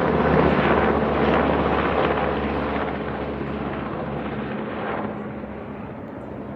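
Big helicopter flying over, its rotor and engine noise loud at first and fading steadily as it moves away.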